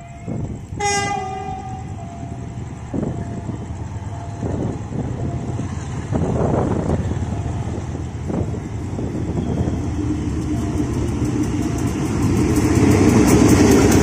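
A diesel locomotive's horn sounds briefly about a second in. The freight train's rumble then builds as it approaches, and near the end the locomotive and its tank wagons pass close by, wheels clattering over the rail joints.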